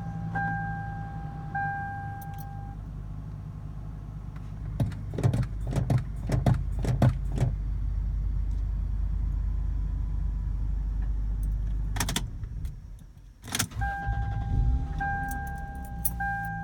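A 2000 Lexus GS300 running with a steady low hum. A steady-pitched beep repeats several times near the start and again over the last few seconds. A run of clicks and knocks comes in the middle.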